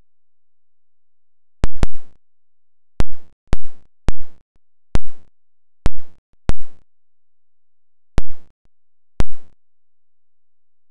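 A series of about nine sharp knocks or clicks, irregularly spaced. Each one is sudden, loud and dies away quickly.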